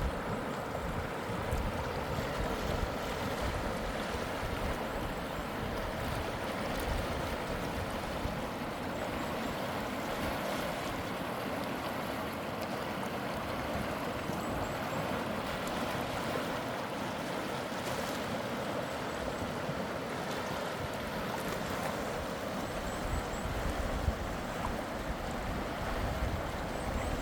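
Mountain stream rushing steadily over rocks, with gusts of wind rumbling on the microphone, heavier near the end.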